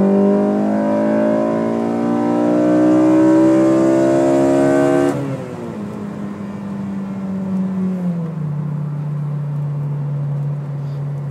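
Honda Civic Si's K20 four-cylinder engine on a wide-open-throttle pull in third gear, revs climbing for about five seconds. The throttle then closes suddenly and the sound drops. About eight seconds in, the engine note steps down once more, as after an upshift, and the engine runs on with a steady drone.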